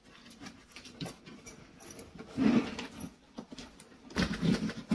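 Zipper on a nylon backpack insert being pulled down in short pulls, with fabric rustling and handling noise. Louder pulls come about two and a half seconds in and again near the end.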